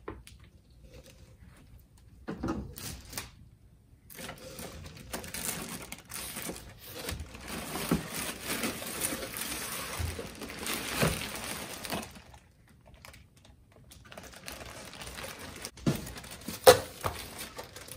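Plastic packaging crinkling and cardboard rustling, with scattered knocks and bumps, as a boxed sewing machine is handled and lifted out of its box; a sharper knock comes near the end.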